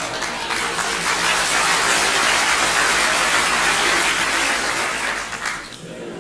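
Audience applause, swelling to a peak and then dying away shortly before the end.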